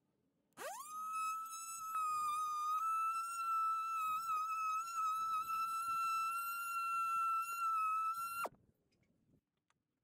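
Milwaukee cordless oscillating multi-tool with a windshield-removal blade, cutting out a windshield. It spins up with a quickly rising whine just under a second in, runs at a steady high whine, and cuts off abruptly about 8.5 seconds in.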